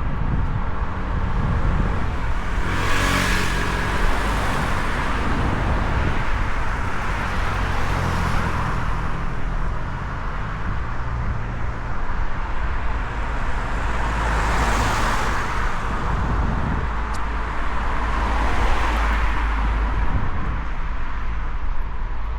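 Road traffic: cars passing one after another, each swelling and fading, loudest about three seconds in and twice more in the last third, over a steady low rumble.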